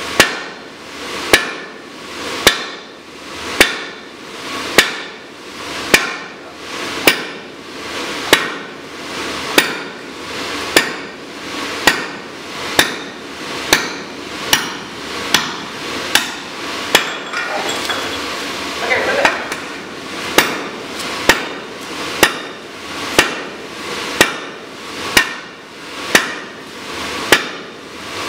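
Sledgehammer blows on a red-hot striking-anvil block, driving a drift through its hardy hole: sharp, loud strikes at a steady pace of about one a second. The rhythm falters briefly with a few lighter strikes about two-thirds of the way through.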